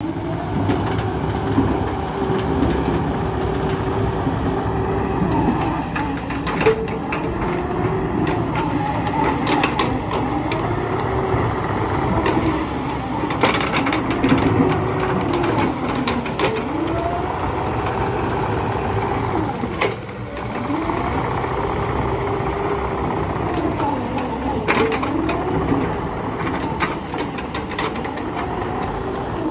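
JCB 86C-1 midi excavator running with its diesel engine under load and a hydraulic whine that repeatedly rises and falls in pitch as the machine is worked. Scattered short knocks and clanks come through over the top.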